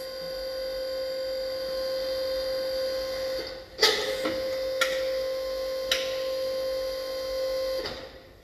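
Steady electrical hum from an Achilli MBS bridge saw, broken by a sharp clunk about four seconds in and two lighter clicks after it, as the saw head's push-button hydraulic lock is released and the head is turned by hand. The hum drops away near the end.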